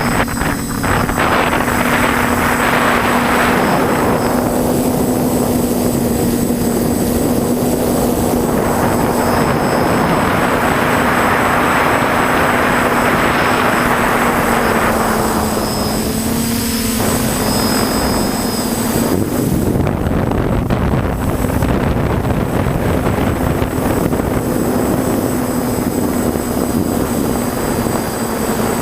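TBS Discovery quadcopter's brushless motors and propellers running in flight: a steady buzzing hum that dips slightly in pitch about halfway through, under a rushing noise that swells and fades twice.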